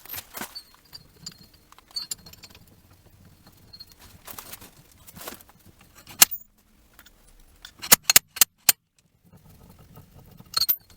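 Steel hand tools and small metal parts clinking and knocking irregularly while a Zhiguli's rear axle half-shaft is taken off, with a few sharp metallic clanks about six seconds in and a quick run of them around eight seconds.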